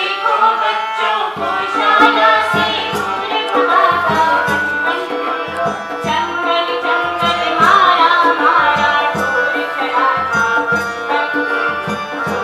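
Music starts abruptly, with a steady beat of low drum thumps under a melody.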